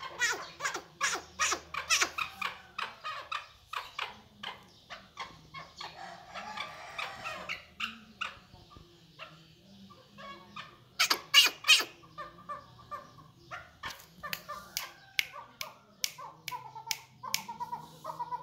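Chakor partridge calling: a long run of short, sharp chuk notes, several a second. There is a loud cluster of notes about eleven seconds in, and quicker notes near the end.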